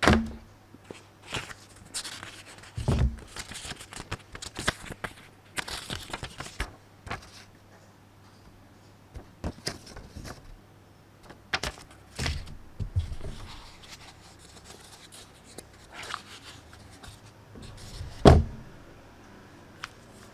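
Hands handling a power bank and its packaging: a run of clicks, taps and knocks with rustling of paper or plastic, and a few heavier thumps, the loudest near the end.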